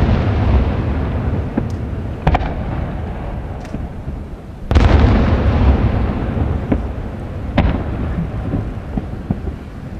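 Aerial firework shells bursting over the sea: a heavy boom at the start, sharper bangs about two seconds in and near three quarters through, and a big boom just before halfway, each followed by a long low rumble that dies away slowly.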